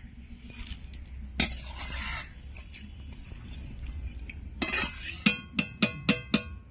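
A metal slotted ladle knocked against the rim of a metal frying pan: one knock about a second and a half in, then a quick run of about six ringing taps near the end, as fried boondi are lifted out of the oil. A faint low hum runs underneath.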